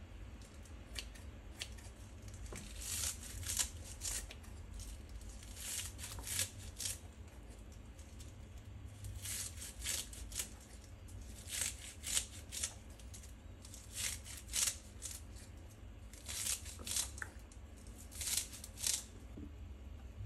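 Rustling of something being handled, in short clusters of brisk strokes, over a steady low hum.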